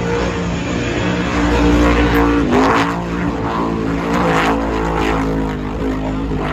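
Offshore race boat engines running at speed, mixed with a helicopter flying low overhead; the engine note dips briefly about two and a half seconds in.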